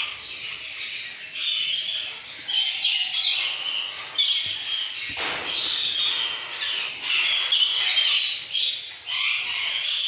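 A brood of nestling Alexandrine and Indian ringneck parakeet chicks squawking together, many high, raspy calls overlapping in repeated bursts.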